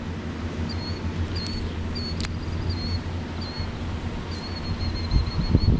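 Caterpillar 740 articulated dump truck's diesel engine running with a steady low hum as the loaded truck pulls away. A bird chirps repeatedly above it, and wind starts buffeting the microphone about five seconds in.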